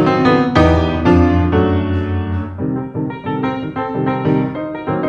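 Solo grand piano playing: a deep bass chord struck about half a second in and held for some two seconds, then lighter phrases in the middle and upper range, with fuller chords coming back near the end.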